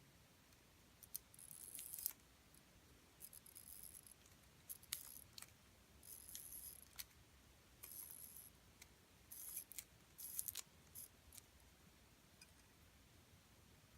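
Faint, light metallic clicks and scrapes of small watch parts being handled, in short clusters that stop about three quarters of the way through.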